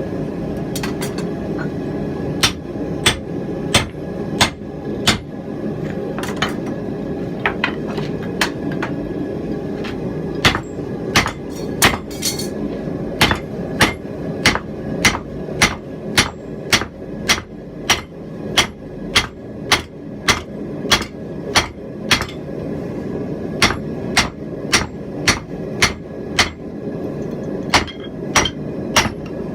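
Blacksmith's hammer striking hot steel on an anvil in a steady run of blows, about one and a half to two a second, with a few brief pauses, as the cheeks of a rounding hammer head are forged out around a drift set in its eye. A steady noise runs underneath.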